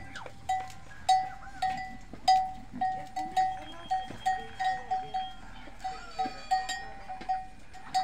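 Small metal bell on a goat's neck ringing over and over at an uneven pace, about two strikes a second, each a single clear ring that fades quickly.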